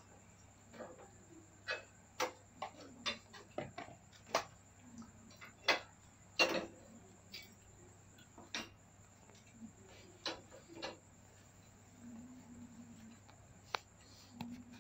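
A scatter of sharp, irregular clicks and ticks, about a dozen, the loudest around six and a half seconds in, over a faint steady hum.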